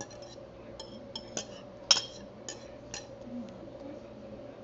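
Metal kitchen utensil clinking against bowls while food is mixed and transferred: about seven sharp clinks with a brief ring, the loudest about two seconds in.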